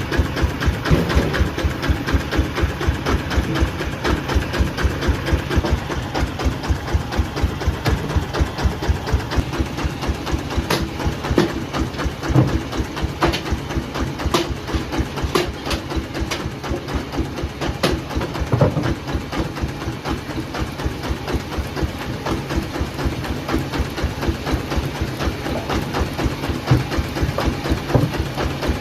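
A heavy engine running steadily at a low, rapid, even beat, with scattered clicks and knocks over it.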